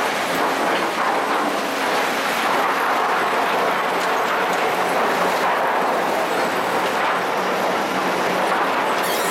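Sawmill board-stacking machine running, a continuous mechanical clatter of its conveyors and boards over a steady low hum.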